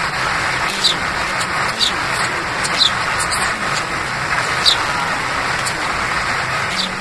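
Steady wind noise buffeting the microphone, with short high chirps every second or two.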